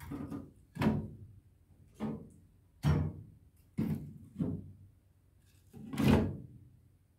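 About seven dull thumps and knocks at uneven spacing, roughly one a second, the loudest near the end, from hands working bread dough and handling kitchenware.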